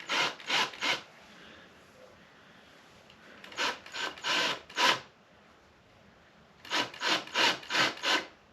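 Short rasping strokes of a tool cutting at the hole in the motorcycle's swing arm. They come in three quick runs: about three strokes, then four, then five.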